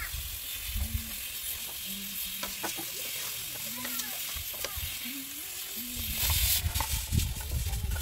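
Steady sizzle of food frying in a pan, with scattered small crackles and a few short low calls in the background. A low rumble comes in about six seconds in.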